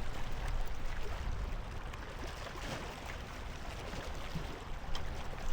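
Steady outdoor water noise with a fluttering low rumble, and a few faint clicks scattered through.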